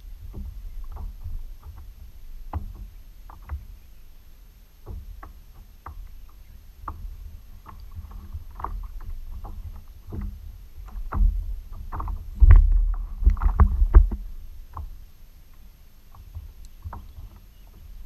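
Water lapping against a sit-on-top kayak's hull, with a low rumble and many scattered small knocks and taps. It is loudest for a couple of seconds about two-thirds of the way through.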